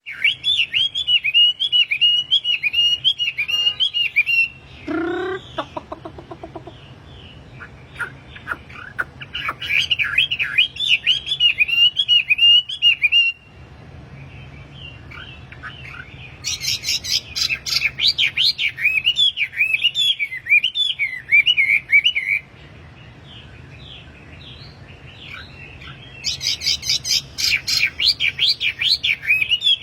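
Wambi bird singing in its lively, full-voiced gacor style: bouts of rapid, high repeated chirps with a couple of short pauses, and a brief lower call about five seconds in.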